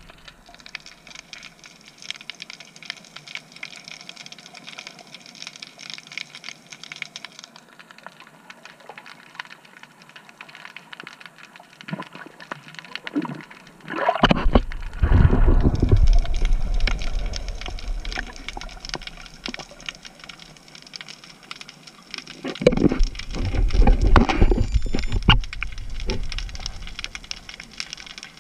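Underwater sound heard through a camera housing: a steady fine crackle, broken about halfway by a loud, deep gurgling rush of a freediver's exhaled bubbles, with another loud rush of water some seconds later.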